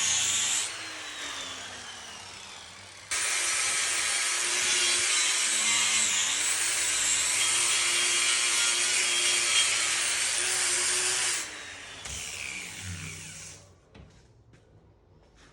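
Angle grinder with a flap disc grinding steel welds flush. It runs, spins down, restarts about three seconds in and grinds for about eight seconds, then winds down and stops.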